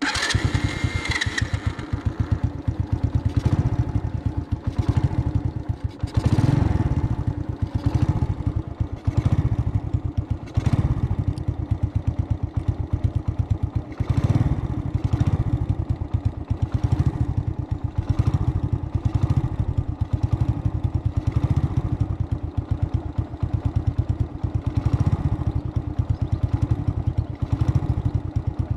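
A vehicle's engine running while driving, with a fast, even pulsing and a faint recurring clatter; it cuts in abruptly out of near silence at the start.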